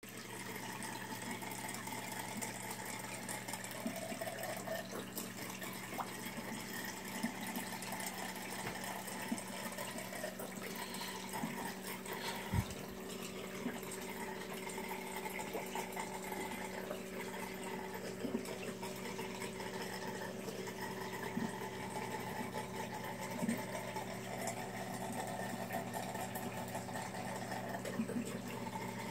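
Reef aquarium equipment running: a steady low hum from the tank's pumps over a constant wash of moving, trickling water, with a few faint ticks and one sharp knock about twelve seconds in.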